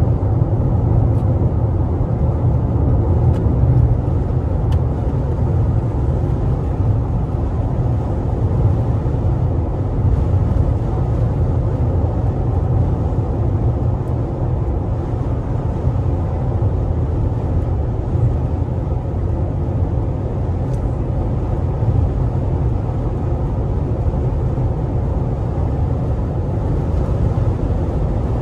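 Tire and road noise inside the cabin of a 2020 Toyota RAV4 TRD Off-Road at highway speed on Toyo Open Country AT3 all-terrain tires, with the AC off and the windows closed: a steady low rumble and hum that stays even throughout.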